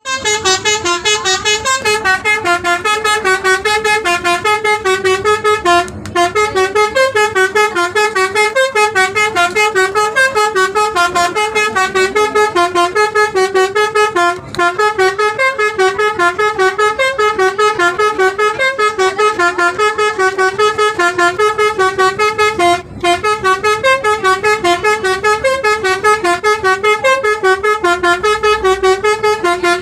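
Telolet bus horn, a multi-tone musical horn, playing a fast tune of quick chord pulses, about four or five a second, with three brief breaks.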